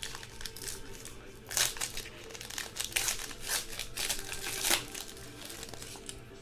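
Wrapper of a pack of football trading cards crinkling and crackling as the pack is torn open and handled, in irregular bursts that are loudest about a second and a half in and again around three and five seconds in.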